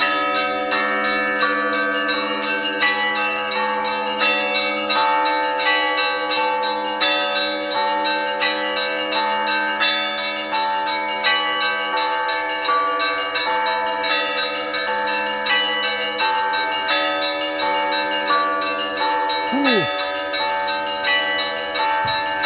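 Russian Orthodox church bells ringing a peal for the service: several small bells struck in a quick, repeating pattern over the sustained tones of larger bells. A deep bell's hum dies away about five seconds in.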